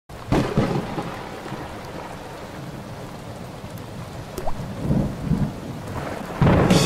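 Steady rain falling, with a loud clap of thunder at the start and a lower thunder rumble about five seconds in. Music comes in just before the end.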